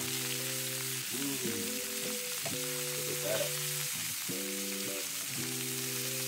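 Chicken pieces sizzling steadily as they fry in olive oil in a skillet, while metal tongs turn them over. Low sustained tones run underneath, changing every second or so.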